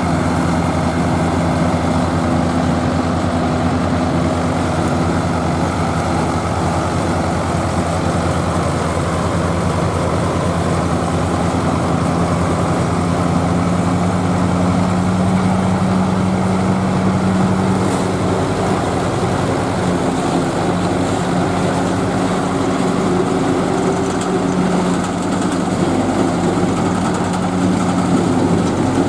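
Zetor tractor diesel engines working steadily under load together with a tractor-drawn forage harvester chopping maize for silage. One engine tone rises in pitch about halfway through, then settles.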